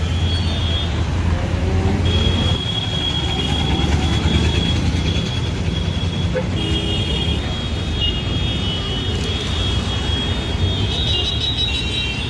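Road traffic noise: a steady low engine rumble, with thin high-pitched tones sounding on and off above it.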